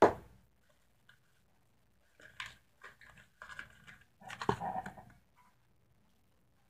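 Small plastic clicks and rustles of food-colouring bottles being handled and opened, with one sharper click about four and a half seconds in.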